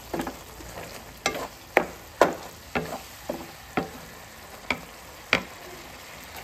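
Black spatula scraping and knocking against a frying pan while stirring wet, sizzling shrimp paste (alamang). There are about ten sharp strokes at uneven intervals, over a faint steady sizzle.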